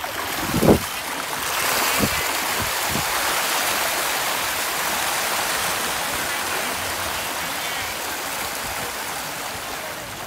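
A large school of fish thrashing at the water surface, a steady rush of splashing water that slowly fades. A heavy thump comes just under a second in, with a few smaller knocks a second or two later.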